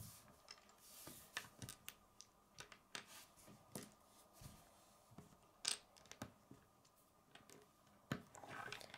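Faint, scattered clicks and taps of plastic Lego bricks being handled and set down on a wooden tabletop, with a few sharper clicks a little past the middle and near the end.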